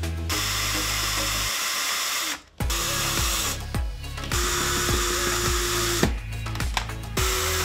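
Cordless drill running in several short bursts of a second or so each, a steady motor whine, over background music.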